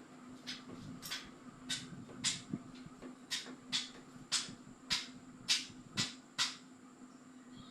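KDK ceiling fan humming steadily, with about a dozen short sharp clicks coming roughly twice a second that stop near the end.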